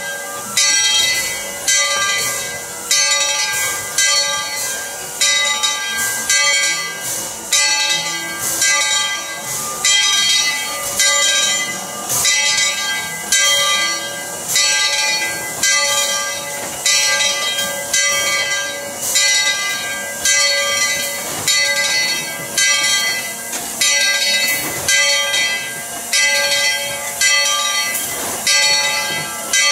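Steam locomotive No. 12's bell ringing steadily, about one stroke a second, each clang ringing on into the next, over the hiss of steam venting from the standing engine.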